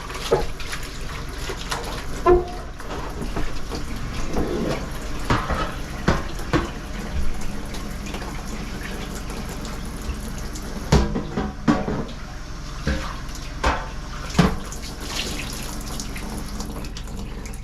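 Kitchen faucet running hot water into a deep sink while a dish is washed, a steady rush of water with several sharp knocks and clinks, most of them in a cluster past the middle.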